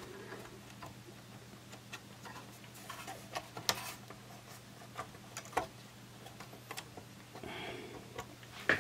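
Scattered light clicks and taps from a circuit board being handled and worked down onto its multi-pin plug connectors inside a transceiver chassis, with a sharper click near the end.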